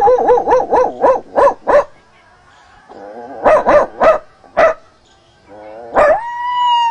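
A man imitating a dog with his voice: a quick string of yapping barks, a second short run of barks a few seconds later, then one long drawn-out whine that drops in pitch at the end.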